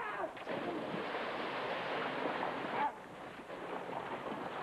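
Lake water splashing as a child kicks and thrashes at the surface, stopping suddenly about three seconds in, then a softer hiss.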